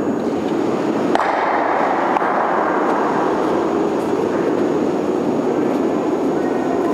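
Granite curling stone sliding down the pebbled ice with a steady, train-like rumble, and a sharp click about a second in.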